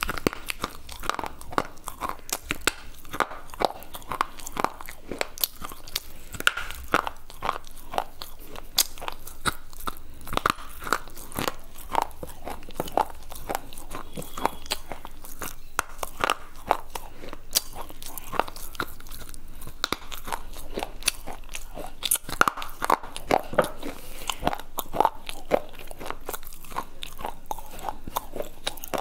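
Pieces of slate bar being bitten and chewed right at a lapel microphone: a steady run of sharp crunches, several a second.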